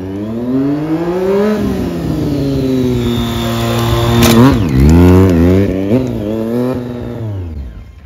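Stunt motorcycle's engine revving up and falling away again and again as the rider throttles through tricks, its pitch rising and dropping. The revs peak loudest about four to five seconds in, around a stoppie with the rear wheel lifted, and the engine drops back toward idle near the end.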